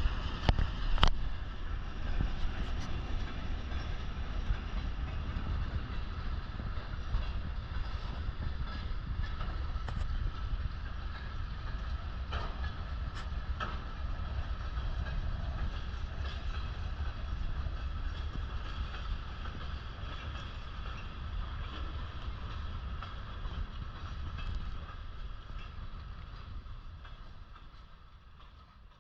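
Afrosiyob high-speed train running on the rails: a steady rumble with a few sharp clicks in the first seconds, fading out near the end.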